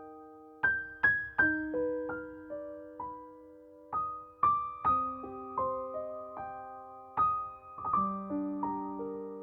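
Background piano music: single notes and soft chords struck a few times a second, each ringing and fading away.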